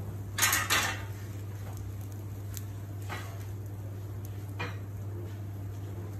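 Kitchen clatter: two loud knocks close together about half a second in, then a few light clicks, over a steady low hum.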